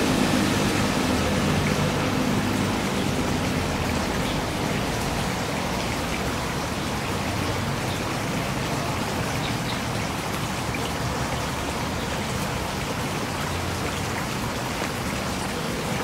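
Water flowing and trickling into a shallow garden pond: a steady, even rush of running water.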